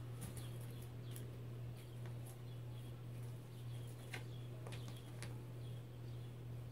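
Sphynx kitten tussling with a toy mouse in a fabric pet bed: a few light taps and rustles, over a steady low hum, with faint short high chirps repeating.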